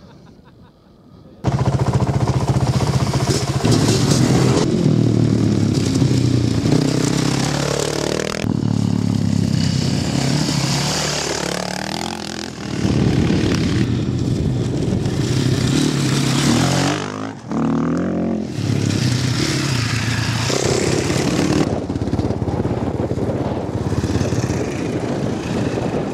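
After a quiet second and a half, enduro dirt bike engines start suddenly and run loudly, revving up and down through the gears. The sound changes abruptly several times as one clip of riding gives way to the next.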